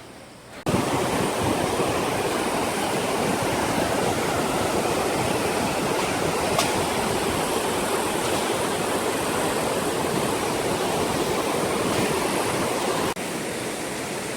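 Steady rush of falling water, like a waterfall or rapids. It starts abruptly about a second in and drops a little near the end.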